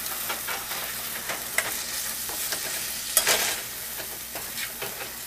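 Chickpeas sizzling in oil and a tomato-spice masala in a stainless steel pot while a metal spoon stirs them, its strokes scraping against the pan. One louder scrape comes about three seconds in.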